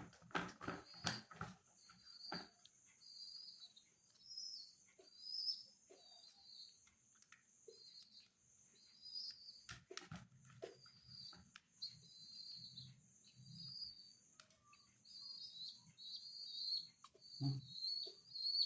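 Young pigeon squab peeping: short, high, whistly begging calls repeated about once or twice a second, getting louder near the end, while it is being hand-fed. There are a few faint clicks near the start and about ten seconds in.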